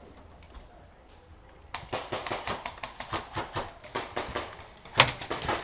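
Footsteps and clattering gear of an airsoft player moving between plywood walls: a fast, irregular run of sharp clicks and knocks that starts about two seconds in, with the loudest knock near the end.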